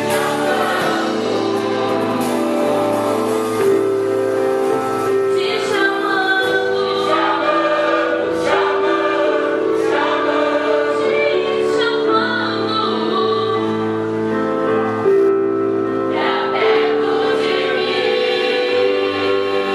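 Church praise group singing a gospel song in harmony, the voices holding long notes together.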